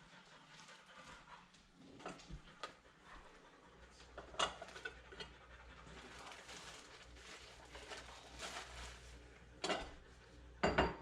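Kitchen utensils and dishes clinking, knocking and scraping as food is served into a wrap, with a few sharp knocks that are loudest near the end. A low steady hum comes in about three and a half seconds in.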